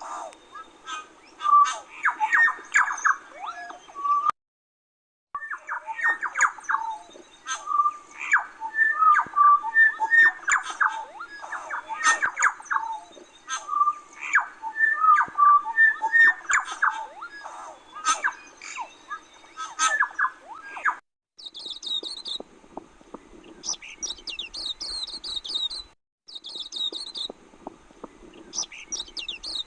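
Forest birds calling: a dense, varied run of squawks, chattering notes and clicks for about twenty seconds, then higher, quickly repeated chirping phrases for the last several seconds.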